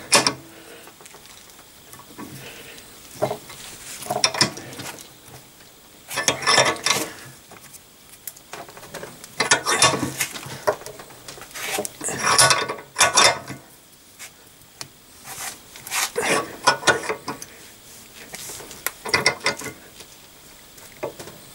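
Bench vise being cranked tight to force a rubber silentbloc bushing into a cast suspension arm, with a socket as a spacer: about six short bursts of metallic clinking a few seconds apart as the handle is worked. The bushing is a tight fit and goes in hard.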